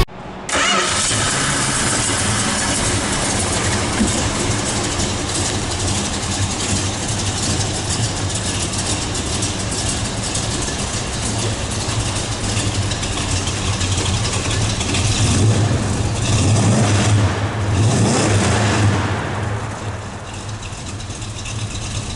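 The 1967 Plymouth Barracuda's 340 cubic inch V8 fires up about half a second in and runs at a fast idle. Around fifteen to nineteen seconds in it is revved up and down a few times, then it drops back to a lower, quieter idle near the end.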